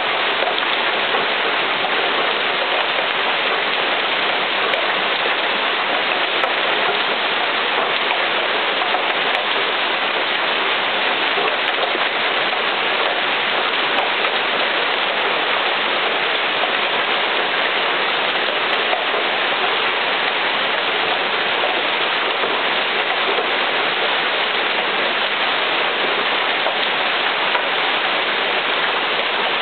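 Large hail and heavy rain from a severe thunderstorm falling steadily, an even, unbroken rush with no let-up.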